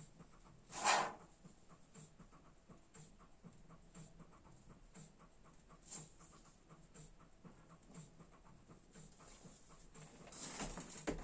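Faint crinkling and clicking of thin plastic bags being handled, with a short breathy whoosh about a second in and another near the end.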